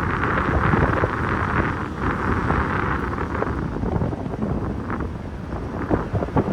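Wind buffeting the microphone, a loud, rough rumble that swells and eases in gusts.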